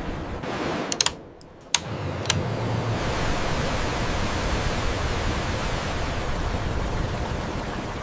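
Suction dredge running, its water and gravel flow making a steady rushing noise. A few sharp clicks and a brief drop in the noise come about a second in.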